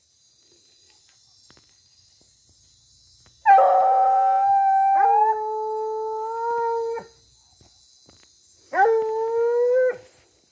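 Hunting hounds baying on a paca's scent trail. There is one long drawn-out bay about three and a half seconds in that drops to a lower pitch partway through, and a second, shorter bay near the end.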